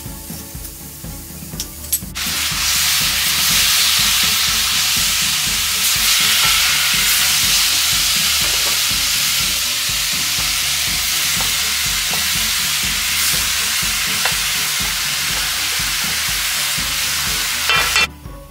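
Chopped vegetables sizzling steadily in a hot frying pan as cooked sliced chicken with its juices is tipped in. The sizzle starts suddenly about two seconds in and cuts off just before the end.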